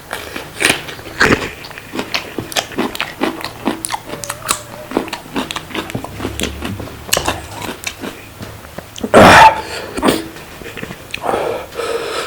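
Close-miked eating of spicy noodles and fried chicken lollipops: chewing, biting and wet mouth clicks and smacks, with one louder noisy burst about nine seconds in.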